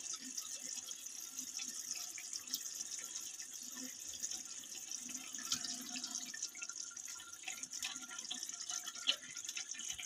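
Ginger-garlic spice paste sizzling in hot oil on high flame as pieces of raw chicken are added: a steady hiss with many small crackles.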